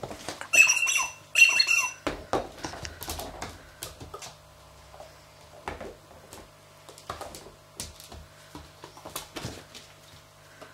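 Squeaky dog toy squeaked twice in quick succession, each squeak about half a second long, as a Dalmatian puppy bites it. Then scattered clicks and soft knocks of the puppy's claws and toys on a laminate floor.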